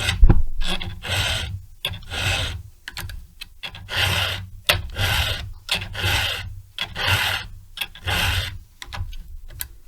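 Chainsaw chain cutters being sharpened by hand with a file: a run of steady rasping strokes, about one a second.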